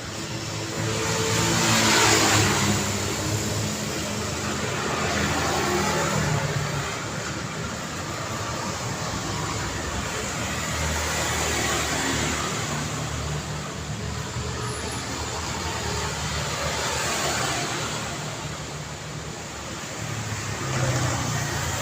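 City street traffic: a continuous wash of road noise as cars pass one after another, each swelling and fading, the loudest about two seconds in, with low engine hum under the tyre noise.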